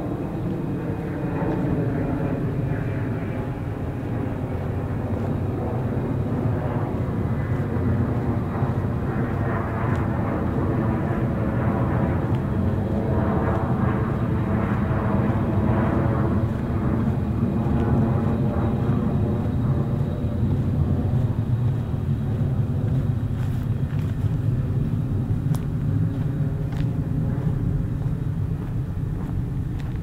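Propeller or jet aircraft passing overhead, a steady engine drone that swells to its loudest around the middle and eases off towards the end.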